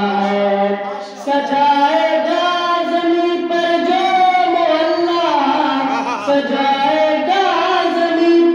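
A boy singing a devotional qasida into a microphone, solo voice with long held, ornamented notes and a brief breath about a second in.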